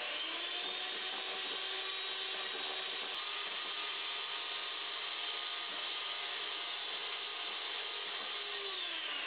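Handheld electric mixer running, its beaters whipping egg whites in a stainless steel bowl up to stiff peaks: a steady motor whine with a rattling, mechanical edge. It speeds up slightly at the start and its pitch drops as it winds down near the end.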